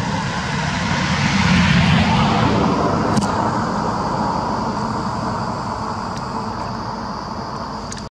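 A passing vehicle's engine noise, swelling over the first two seconds and then slowly fading away.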